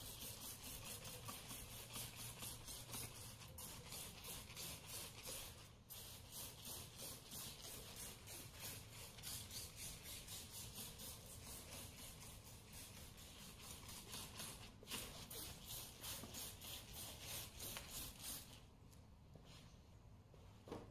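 Hand sprayer misting a liquid onto a car bonnet: rapid, evenly spaced hissing spurts with two short pauses, stopping shortly before the end.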